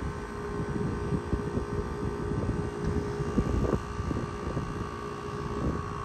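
R-410A condensing unit's compressor running with a steady hum, its condenser fan off: the fan cycle switch holds the fan off in low ambient temperature while head pressure builds. Wind buffets the microphone in uneven gusts.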